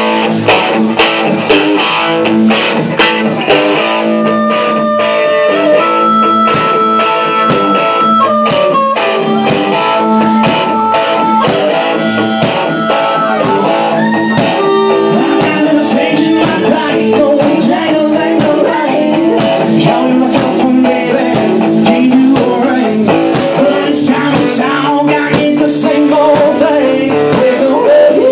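Live blues-rock band playing loudly: electric guitar, bass and drums, with long held, bending harmonica notes over the top.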